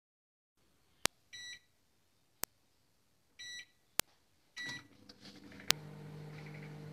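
Panasonic convection microwave oven being set: several sharp clicks and three short electronic beeps from its keypad. Then it starts running with a steady hum as it begins baking at 180°C.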